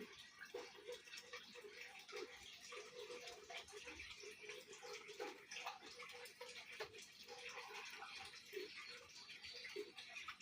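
Zebra dove (perkutut) cooing faintly in short low notes, repeated at uneven intervals, over a steady high hiss.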